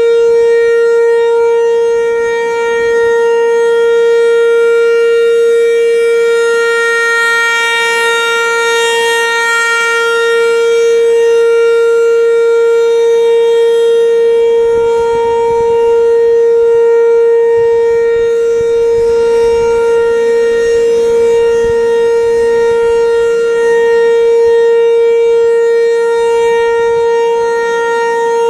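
Federal Signal 508 outdoor warning siren sounding a steady held tone for a tornado drill test, its loudness swelling and easing slightly every several seconds.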